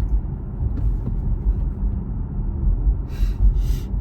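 Low, steady rumble of a moving car heard from inside the cabin, with two short hisses about three seconds in.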